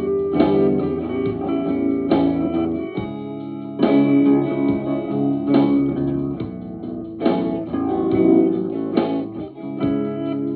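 Instrumental dream-pop electric guitar music: chords struck about every second and a half to two seconds, each left ringing into the next.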